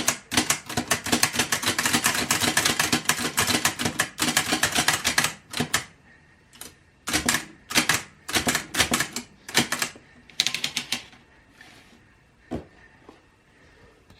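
1911 Bennett pocket typewriter being typed on: a fast, continuous run of key clicks for about five seconds, then shorter bursts of keystrokes with pauses between them, thinning to a single click near the end.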